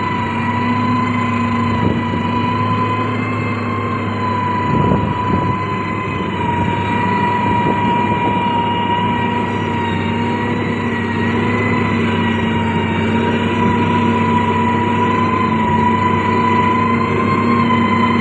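Heavy road-construction machine running steadily, with a high, slightly wavering whine over a low engine drone and a single clunk about five seconds in.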